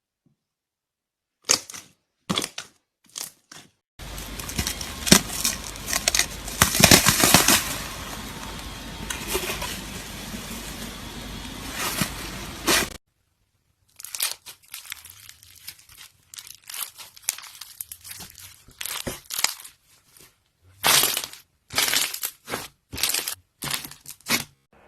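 Slime being squished and poked by hand, crackling and popping. A few sharp pops come first, then about nine seconds of dense crackling, then a string of separate crackles and pops.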